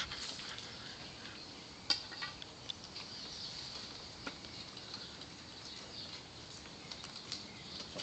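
Faint rustling and a few scattered light knocks, the sharpest about two seconds in, from a T-shirt being loaded and pushed into an air cannon's barrel.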